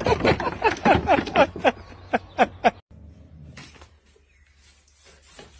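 A cat meowing in a rapid series of short cries, about four a second, each falling in pitch. The cries cut off abruptly about three seconds in, leaving a few faint taps.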